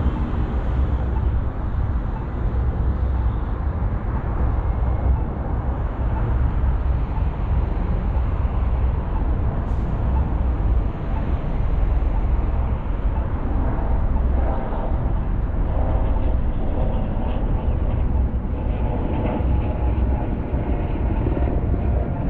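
Car driving on city streets: a steady low road-and-tyre rumble mixed with traffic noise, and a faint engine-like hum coming in during the second half.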